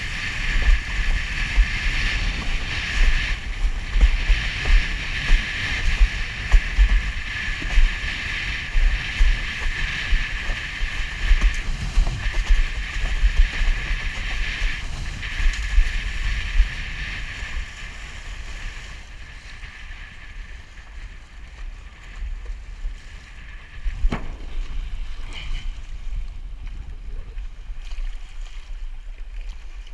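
Wind buffeting the camera microphone and water rushing and slapping under a windsurf board sailing through choppy water, in gusts. It gets quieter about two-thirds of the way through as the board slows toward shore, with one sharp knock near the end.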